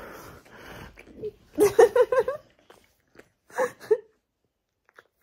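A dog vocalising in a quick run of about five short, whiny, pitched moans, then two more short ones a second and a half later.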